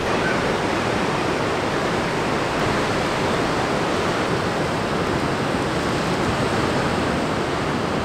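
Ocean surf breaking on the shore, heard as a steady, even wash of noise.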